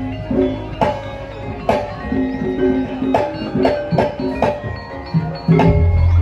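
Percussion music with repeated drum strokes and ringing, bell-like struck tones. A deep, steady bass tone comes in near the end.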